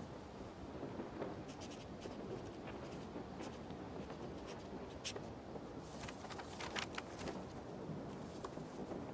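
Fountain pen nib scratching across paper in short strokes as a signature is written, the sharpest scratches about five and seven seconds in, over a faint steady hiss.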